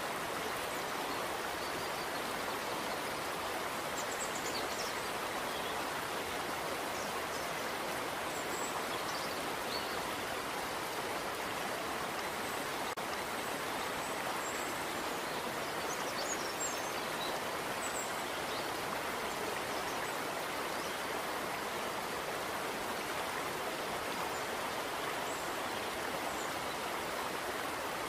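Steady rushing noise like running water, with a few faint, short high chirps above it.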